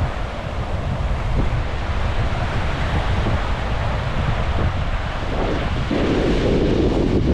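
Wind buffeting the microphone over sea waves washing onto the beach, a steady low rumble under a hiss of surf that grows louder about six seconds in.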